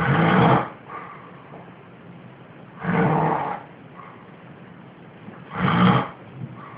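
Loud snoring in deep sleep: three snores about three seconds apart, each lasting roughly half a second, with quieter breathing between them.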